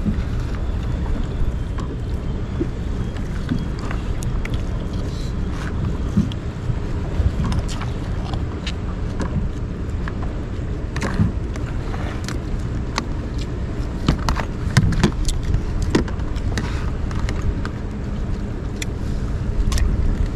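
A steady low rumble of wind and waves at sea around a boat, with scattered clicks and knocks of someone eating.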